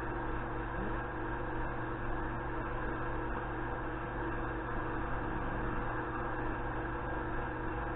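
Steady low hum with an even hiss and no distinct events: background room tone with mains-type hum.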